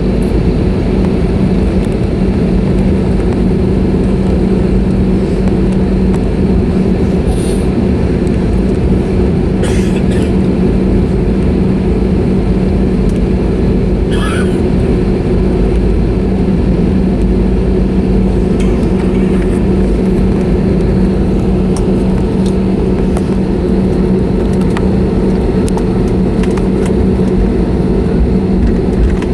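Steady engine and air hum inside the cabin of an Airbus A320neo, with a constant low droning tone and a few faint clicks.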